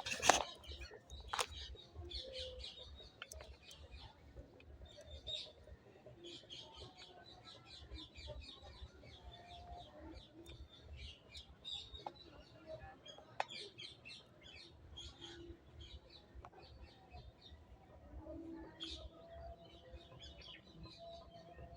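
Faint birdsong: many small birds chirping on and off, with a few sharp knocks, the loudest one right at the start.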